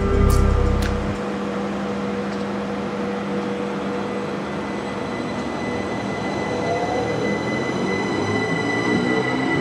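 Southeastern Class 375 Electrostar electric multiple unit moving slowly past at the platform, with a steady electrical hum and whine. Near the end its traction-motor whine starts rising in pitch as the train picks up speed.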